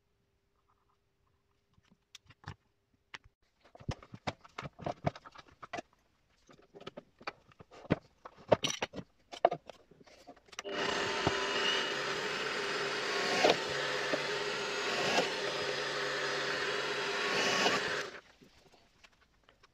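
Scattered knocks and clicks as a wooden board is handled and set in place. Then an electric drill in a bench drill stand runs for about seven seconds, boring holes through the board, and cuts off suddenly.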